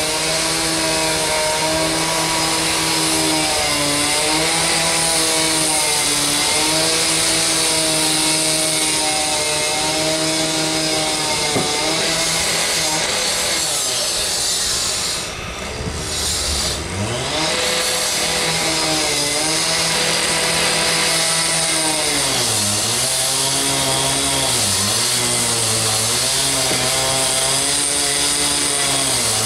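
Small engine of a power tool running at high speed, its pitch dipping again and again as it takes load. About halfway through it drops low and fades, then revs back up.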